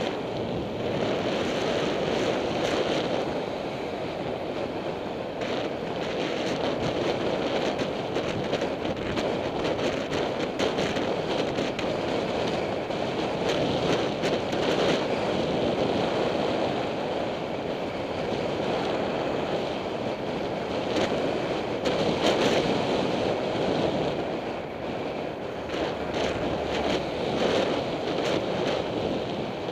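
Steady wind rushing over a bicycle helmet camera's microphone as the bike rides at speed, with a few faint clicks and rattles.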